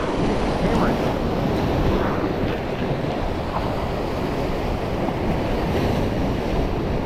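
Surf washing against the jetty with wind buffeting the microphone, a steady rushing noise.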